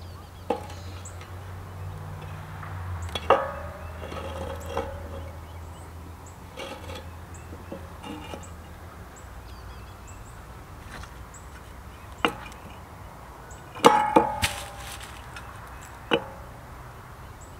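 Hollow-cored clay bricks being set down and shifted on a concrete slab: scattered sharp clacks and knocks with a brief ring, the loudest a quick cluster about fourteen seconds in.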